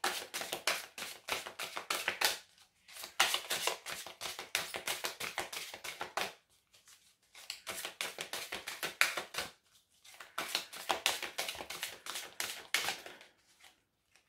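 A deck of oracle cards being shuffled by hand: quick runs of crisp card clicks and flicks, broken by short pauses about three times.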